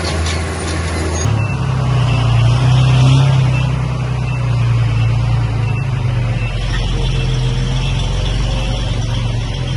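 Heavy diesel engine of earthmoving machinery running steadily. Its pitch steps up about a second in and it grows louder for a couple of seconds before settling.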